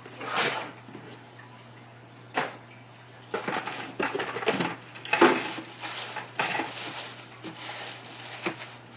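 Household items being handled: a couple of sharp knocks, then a run of irregular clattering and rustling from about three seconds in, over a faint steady hum.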